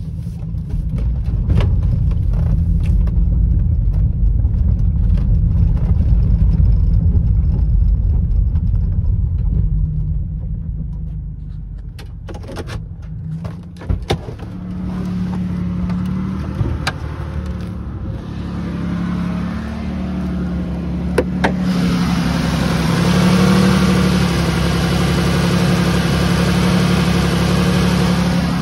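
2004 Buick Rendezvous CX with its 3.4-litre V6: a deep, steady cabin rumble while driving, easing off after about twelve seconds to the engine idling with a steady low hum and a few sharp clicks. About seven seconds from the end the same idle is heard up close in the engine bay, where a loud hiss and whir of belt-driven accessories joins the hum.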